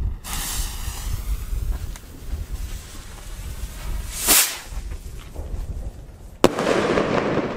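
Small salute rocket from a bottle: the fuse hisses once lit, the rocket launches with a loud, short whoosh about four seconds in, and it bursts with a sharp bang about six and a half seconds in, followed by a crackling tail that slowly fades.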